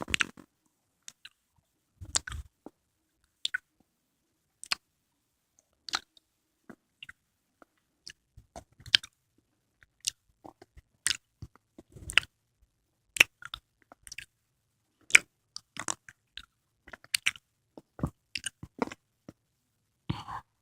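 Close-miked mouth sounds of a person chewing a spoonful of konjac jelly: irregular wet smacks and clicks, sometimes several in quick succession.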